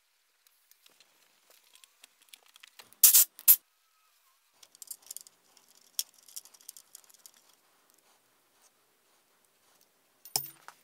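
Small steel parts being handled: two sharp metal clicks about three seconds in, then faint scraping and light clicks, and a short metallic clink near the end as a hex key works the cap screw of the scale-mounting bracket.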